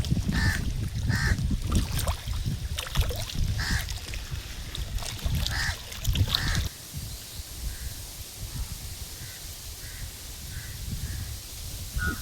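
Birds calling in short, repeated calls over a loud low rumble. About halfway through the rumble stops suddenly and the calls go on fainter.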